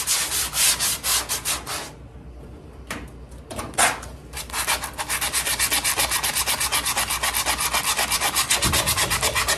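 80-grit sandpaper on a foam sanding block, hand-scuffing epoxy primer along the edges of a car door and quarter panel to give body filler something to grip. It goes in quick back-and-forth strokes, pauses for a couple of seconds with only a stroke or two, then resumes at a fast, steady pace about halfway in.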